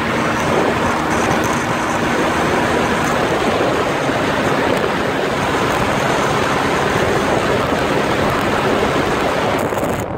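Steady wind rush over the microphone on a moving motorcycle, with a faint steady engine drone under it for the first few seconds. The hiss loses its highest part near the end.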